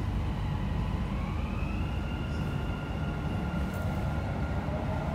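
Dubai Metro train running with a steady low rumble, heard inside the carriage, as its electric traction motors whine up in pitch about a second in and then hold a steady note while the train pulls away from the station.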